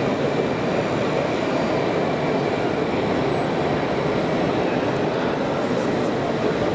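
Steady, dense background din of a busy exhibition hall: a wash of crowd murmur and machine noise with no single sound standing out.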